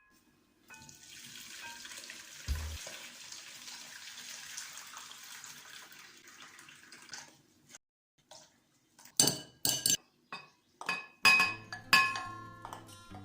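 Liquid pouring steadily for about six seconds, then, from about nine seconds in, a series of sharp clinks of glass and dishes knocking together.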